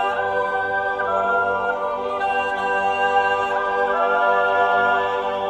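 Swiss yodel choir of men and women singing unaccompanied in close harmony: slow, held chords, with the upper voices stepping to new notes every second or two.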